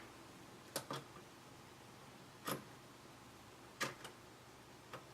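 Faint clicks of a SnapSafe lock box's three-digit combination dials being turned by hand to set a new combination: about six sharp clicks at irregular spacing, some in quick pairs.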